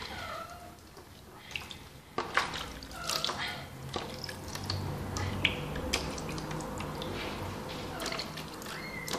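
Water splashing and dripping as a soapy kitten is washed by hand in a plastic basin, with a few short kitten mews.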